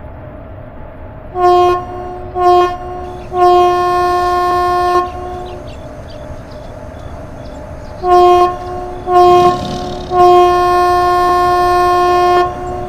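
Train horn sounding two short blasts and one long blast, then the same pattern again, over the steady rumble of an approaching train.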